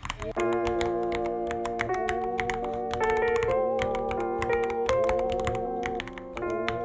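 Typing on a Ducky One 3 mechanical keyboard: a fast, irregular run of key clicks over background music with a wavering melody.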